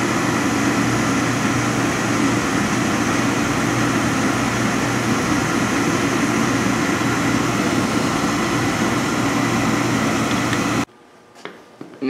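Oil burner of an old Peerless boiler running steadily, then cutting off abruptly near the end as the new Honeywell triple Aquastat's high limit shuts it down at about 200°F.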